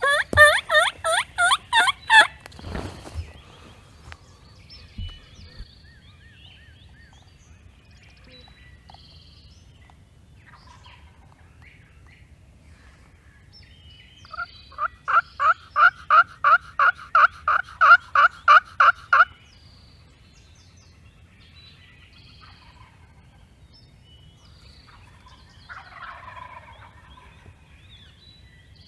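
Turkey yelping: a loud, fast run of about ten raspy notes in the first two seconds, then a longer run of about fifteen evenly spaced yelps, about three a second, in the middle, and a faint call near the end.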